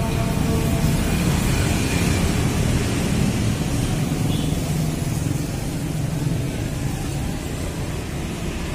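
Steady low background rumble with no distinct event; no clear sound from the cat stands out.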